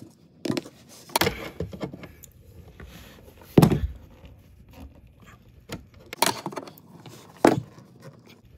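Screwdriver prying at a fitting in an RV breaker panel: scraping with a series of sharp clicks and knocks, the loudest about three and a half seconds in.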